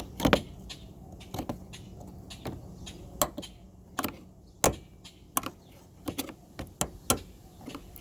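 Irregular sharp clicks and knocks of plastic trim clips being pried and worked loose from a car's taillight access panel, the strongest snaps near the start and about halfway.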